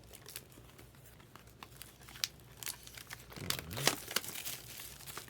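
Cellophane-wrapped boxes of trading cards being handled, the plastic crinkling and crackling in irregular bursts with sharp clicks, busiest about three to four seconds in.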